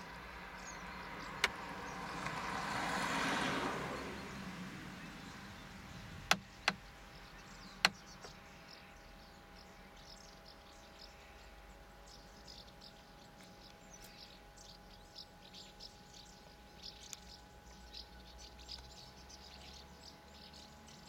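Outdoor ambience with small birds chirping faintly, many short high chirps through the second half. A rush of noise swells and fades between about two and four seconds in, and a few sharp clicks stand out in the first eight seconds.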